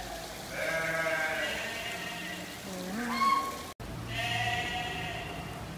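An animal bleating: two long, wavering bleats, with a short rising call between them and a brief dropout in the sound between the two.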